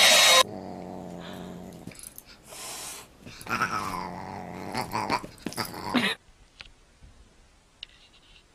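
A hair dryer's blowing hiss cuts off about half a second in. A pet then growls in drawn-out stretches, some low and steady and some rising higher, and stops about six seconds in. A few faint clicks follow.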